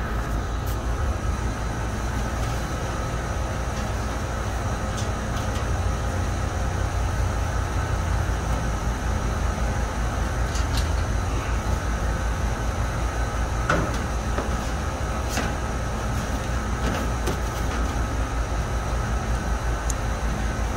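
Steady low drone of running machinery with a faint steady whine, and a few light clicks and knocks from handling the condenser fan motor and grille assembly, the sharpest about 14 seconds in.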